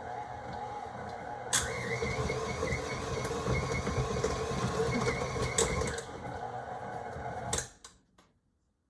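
Stand mixer motor running with its paddle beating soft, sticky bread dough; it gets louder with a sharp knock about a second and a half in, and is switched off near the end.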